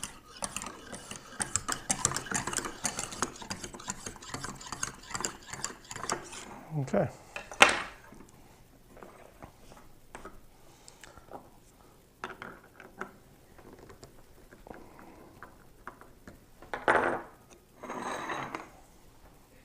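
Lansky 1000-grit ultra-fine honing stone, oiled, stroked rapidly along a clamped knife edge: a dense run of scraping strokes that stops about six and a half seconds in. A sharp click follows, then scattered light taps and two louder scrapes near the end.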